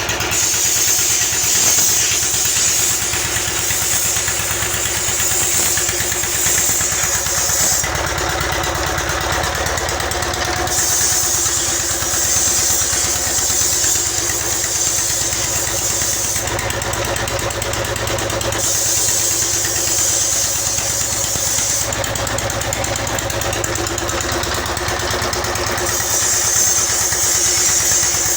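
Diesel engine running steadily with a fast, even beat. A high hiss fades out and comes back every few seconds, and the low rumble strengthens while the hiss is gone.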